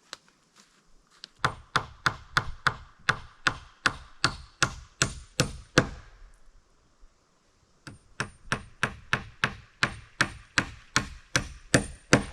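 Hammer driving nails into wooden siding boards: two runs of steady blows, about three a second, with a pause of a couple of seconds between them.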